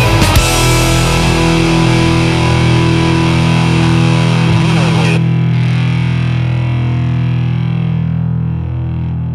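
Rock band's final hit, then a distorted electric guitar and bass chord held and left ringing out, slowly dying away; its brightness drops off suddenly about five seconds in.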